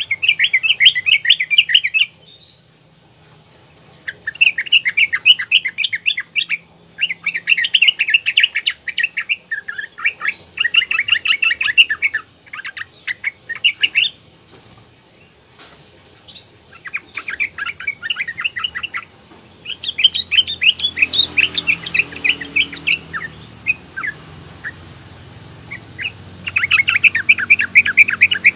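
Yellow-vented bulbul (trucukan) singing in repeated bursts of rapid notes, each burst one to three seconds long with short pauses between. It is a young female's call used to draw a male into song.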